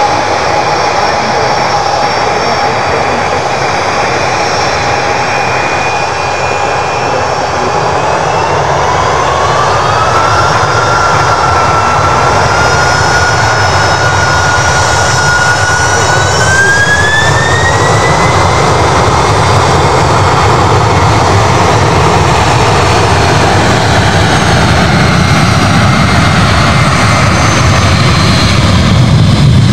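Jet engines of a Boeing 767 freighter spooling up for takeoff. A steady fan whine rises in pitch in two steps, about eight and about sixteen seconds in, as thrust is set. A low rumble builds toward the end as the aircraft starts its takeoff roll.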